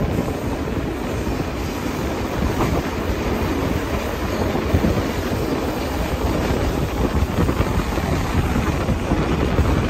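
A passenger train's carriages running along the track, heard at an open carriage window: steady rolling noise of wheels on rails, with wind buffeting the microphone.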